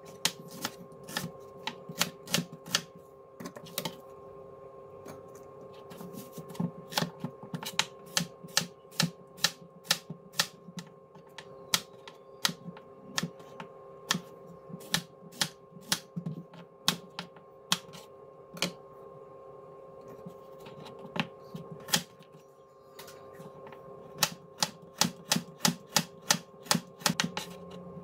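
Chef's knife chopping onion, zucchini and carrot on a plastic cutting board: a quick run of sharp knocks, a few each second, broken by short pauses. A faint steady hum sits under it.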